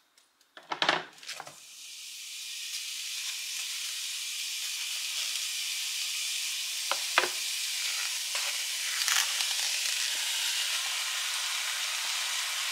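Diced beef and pork hitting a hot sauté pan and frying. A few short knocks come about a second in, then a steady sizzle builds and holds, with a couple of sharp taps about seven seconds in.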